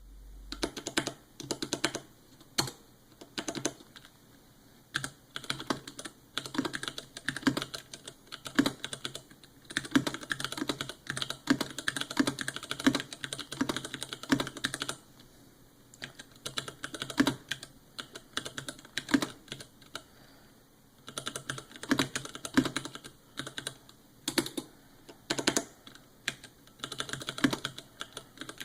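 Typing on a custom 60% mechanical keyboard with stock Cherry MX Clear switches: irregular runs of key clicks and clacks, broken by a couple of short pauses about halfway through.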